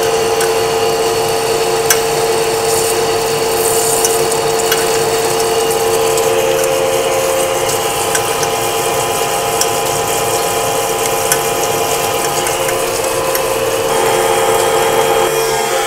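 Metal lathe taking a heavy roughing cut in 1045 steel, about 3/8 inch deep at 10 thou per revolution: a steady cutting hum and hiss, with scattered sharp ticks from hot chips flying off the tool.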